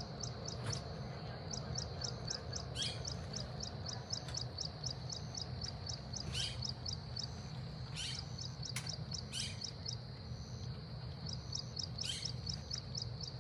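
Field ambience of insects and birds: a high, steady insect call pulsing about six times a second, with several short, quick descending bird calls scattered through it over a low steady rumble.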